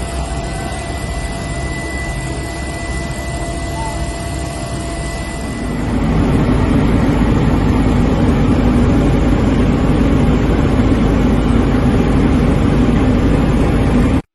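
Aircraft engine running steadily, a continuous loud drone that grows louder about six seconds in and cuts off suddenly at the end.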